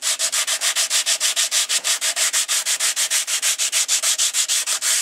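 Coarse sandpaper on a wooden block rubbed quickly back and forth along a rusty steel bow saw blade wetted with WD-40, scouring off the rust: an even rubbing, several strokes a second.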